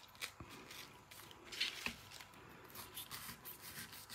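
Small paring knife cutting into the rind of a whole pineapple: faint, scattered scraping and clicking strokes, a little louder about halfway through.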